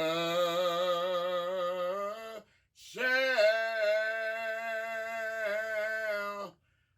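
A man singing an old hymn unaccompanied, in a slow, drawn-out style with each syllable stretched over a long note. There are two held notes, the first about two and a half seconds long with a wavering vibrato, and the second about three and a half seconds long and steadier, with a short breath between them.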